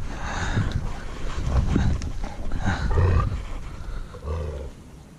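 Dogs growling in rough play, in several gruff bursts over the first few seconds and one shorter burst later, trailing off near the end.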